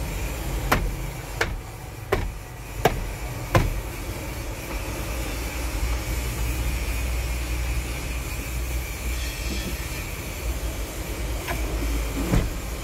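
Five sharp, evenly spaced clicks, about two-thirds of a second apart, from the steering-column controls in a Fuso Super Great truck cab under electrical testing, then two more clicks near the end. A steady low rumble runs underneath.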